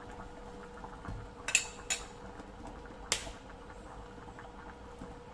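A metal spoon clinking against a cooking pan: two quick clinks about a second and a half in, then a third, ringing clink about a second later, over a faint steady hum.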